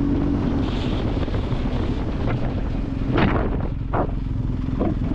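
Wind buffeting the microphone of a camera on a moving motorcycle, with sharp gusts about three and four seconds in. Under it runs the low, steady note of the BMW R 1250 GS's boxer twin at road speed.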